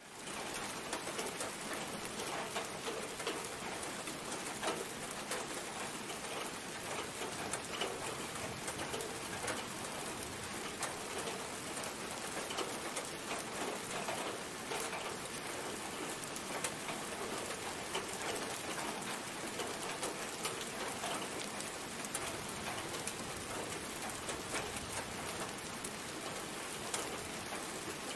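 Steady rain falling, with individual drops striking close by here and there.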